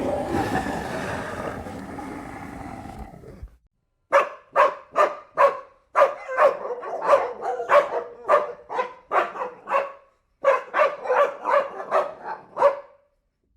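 A long, rough animal roar trails off over the first three seconds. After a short pause a dog barks in quick succession, about two or three barks a second, in three runs broken by brief gaps.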